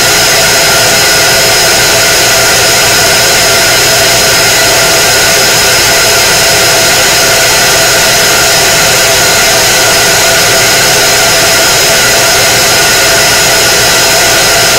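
K40 CO2 laser cutter running while it engraves a tumbler turning on a rotary attachment. It makes a loud, steady fan-like whir with several constant high whines.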